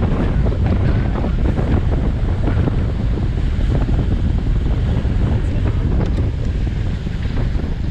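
Heavy wind buffeting on a GoPro Hero 7 Black's microphone from a bicycle moving at speed: a loud, steady, low rumble.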